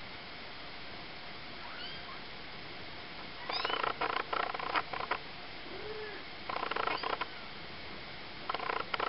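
Bells inside a kitten's plastic toy balls jingling as the kitten bats them, in three bursts: about three and a half seconds in, around six and a half seconds, and near the end. A faint short mew comes between the bursts.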